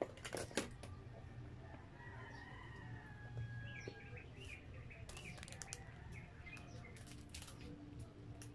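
Close-miked eating sounds: a plastic fork clicks sharply against the food box a few times in the first second, followed by scattered smaller clicks and chewing over a steady low hum.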